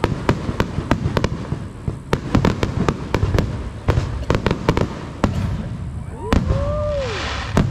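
Aerial fireworks show: a rapid run of about twenty sharp shell bursts over a continuous low rumble, thinning out after about five seconds.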